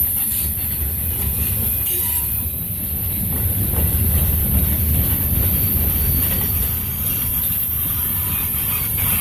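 Freight train's covered hopper cars rolling past at close range: a steady, loud rumble of steel wheels on the rails.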